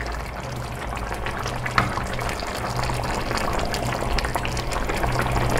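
Beef stew in blended cilantro sauce and chicha de jora bubbling in a pot, with a wooden spoon stirring through it. It is cooking uncovered so the chicha's alcohol boils off. Many small pops over a steady low hum, growing gradually louder.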